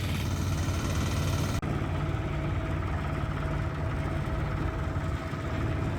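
Single-cylinder diesel engine of a Korean two-wheel walking tractor (경운기) running steadily as the tractor is driven, with a rapid, even chugging.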